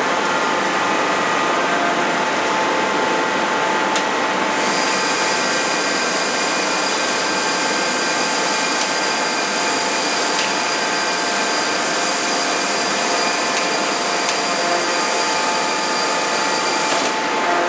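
Steady machinery noise from a forging production line: a constant drone with several steady whining tones. A higher whine joins about four and a half seconds in and drops out near the end, and there is a single click about four seconds in.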